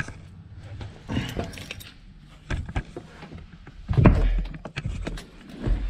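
Scattered clicks, rattles and knocks of handling, with a heavy low thump about four seconds in and a smaller one near the end.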